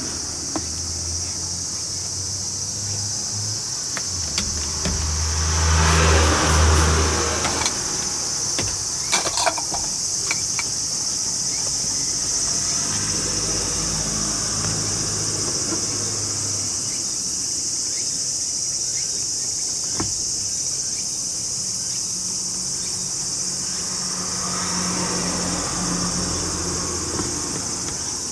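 A steady, high-pitched chorus of insects keeps up throughout. Under it a low rumble comes and goes, swelling around six seconds in, with a few sharp clicks a little later.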